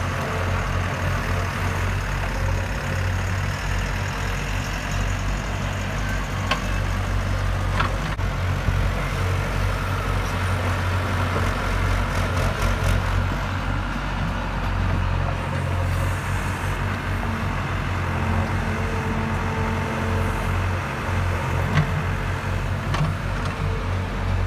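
Hyundai 85A excavator's diesel engine running steadily with a low hum as it digs soil and swings to load a truck, with a few short sharp knocks of the bucket and arm along the way.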